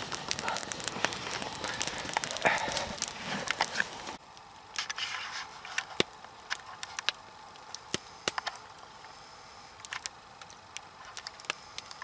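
Wood campfire crackling, with dense crackle over a hiss of flames. After about four seconds it turns much quieter, with only scattered pops from logs burning down on glowing embers.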